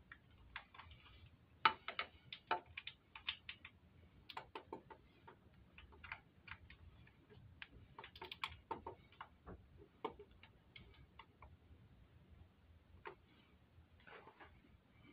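Ratchet wrench clicking in short irregular runs of quick clicks as engine fasteners are torqued down.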